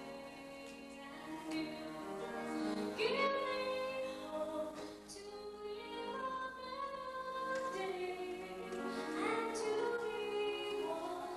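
A woman singing a slow solo with long held notes and vibrato, the voice swooping up to a higher note about three seconds in and again near the end.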